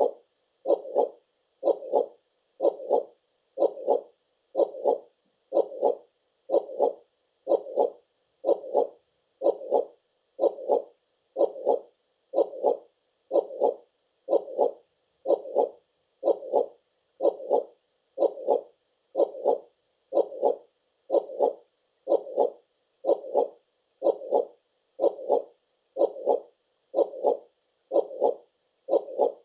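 Heartbeat sound: a steady lub-dub double beat repeating a little under once a second, about 63 beats a minute.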